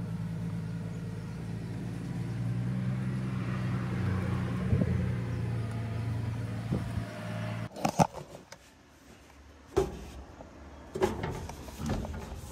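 An engine running steadily with a low, even hum that cuts off abruptly about eight seconds in, followed by a few knocks and clicks.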